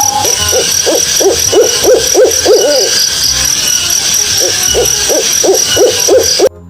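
Owl hooting: two runs of quick hoots, about four a second, with a short gap between them. Behind them is a steady high-pitched ringing with fast ticking.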